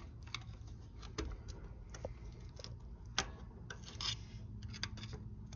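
Small metal picks scraping and clicking against a stubborn transaxle axle seal as it is pried out, in irregular ticks and scratches.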